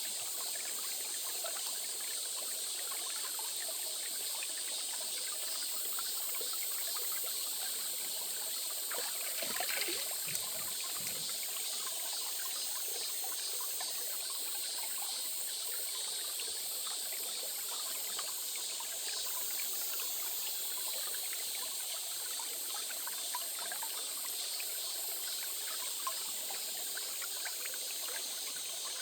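Small stream trickling steadily over stones, with a continuous high-pitched shrill layer above it.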